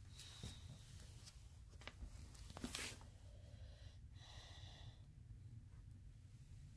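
A sleeping Renascence Bulldogge snoring with faint, noisy breaths. The loudest is a short snore a little before the middle, and a longer one comes about four seconds in.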